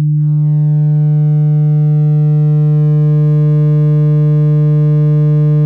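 Subwoofer in a small 3D-printed enclosure playing a 150 Hz sine test tone, a steady loud low hum, while its power is turned up towards 15 watts. A buzzy edge of many overtones comes in just after the start and stays.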